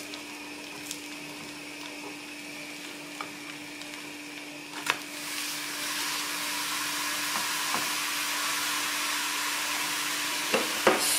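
A thin pancake frying in a hot pan, sizzling. About five seconds in, a spatula clicks as the pancake is flipped, and the sizzle then turns louder and steady as the raw side meets the pan. A steady low hum runs underneath until near the end.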